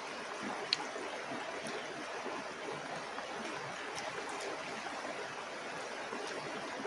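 A mountain river rushing steadily, an even wash of flowing water, with one brief click about a second in.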